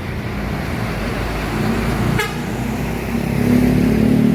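Bus's diesel engine running as it goes by, with a sharp click about halfway through. Then a bus horn sounds a steady blast for about a second near the end.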